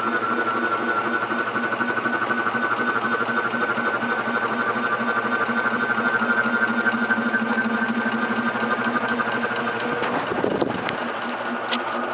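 Golden Fan 56" ceiling fan running with a steady electrical buzz from its variable speed control. The buzz fades about ten seconds in, with a few light clicks after.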